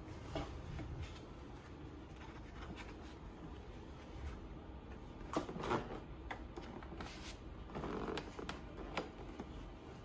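Nylon webbing strap of a child car seat being handled and pulled, rustling and sliding, with a few sharp plastic clicks and knocks. The loudest clicks come about five and a half seconds in, and a short rustle near eight seconds.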